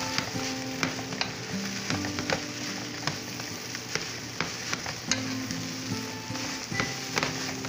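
Rice being stir-fried in a metal wok, sizzling in the hot oil, with a wooden spatula scraping and tapping against the pan again and again as it is turned.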